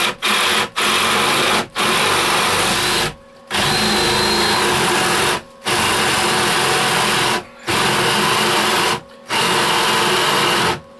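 Power drill boring a hole through OSB sheathing and a 2x4 stud. It runs hard in stretches of one to two seconds and stops briefly several times between them.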